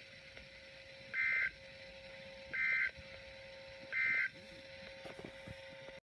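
Weather alert radio sending the Emergency Alert System end-of-message code: three short two-tone data bursts (SAME) about 1.4 s apart, marking the end of the warning broadcast. A faint steady tone sounds between the bursts.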